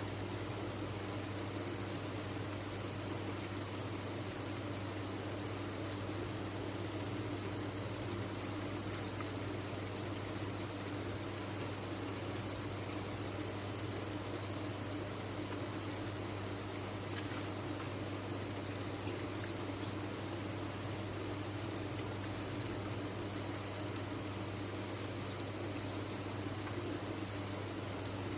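A dense chorus of many farmed crickets chirping together, a steady high-pitched sound with no pauses.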